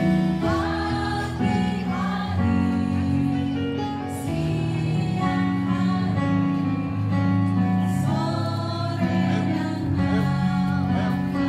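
Music: a group of voices singing a worship song over strummed guitar chords.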